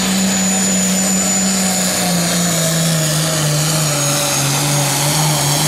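Limited pro stock pulling tractor's diesel engine running hard under full load while dragging a sled, with a high steady whistle over it. The engine speed drops about two seconds in and again near the middle as the sled's weight builds, then rises a little near the end.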